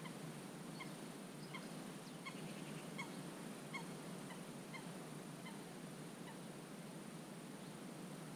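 A bird calling in a steady series of short, repeated notes, about three every two seconds. The calls grow louder toward the middle and fade out after about six seconds, over a steady low background rumble.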